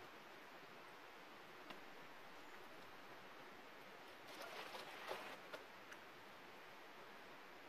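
Near silence: a faint outdoor hiss, with a brief cluster of faint clicks and rustles about four to five and a half seconds in.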